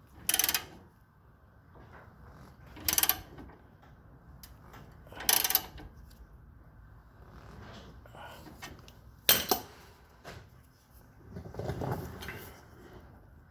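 Homemade leaf-spring spreader's scissors jack being cranked open against a Model A Ford's rear spring, in five short bursts of metal-on-metal scraping and clunking, roughly every two to three seconds; the sharpest comes a little past the middle.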